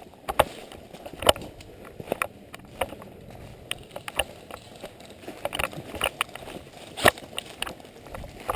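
Footsteps crunching through dry fallen leaves on the forest floor, an uneven walking stride with sharp crackles every second or so.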